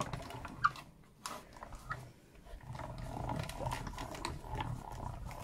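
A few clicks as plastic cutting plates and a metal die are handled. Then, about two and a half seconds in, a hand-cranked die-cutting and embossing machine runs with a steady low rumble as the plate sandwich is cranked through its rollers.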